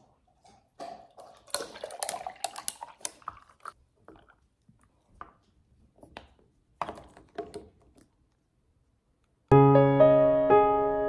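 Clinks and clatter of coffee bottles and a jar being handled on a kitchen counter while iced coffee is made, in scattered bursts. About nine and a half seconds in, piano music starts suddenly and is the loudest sound.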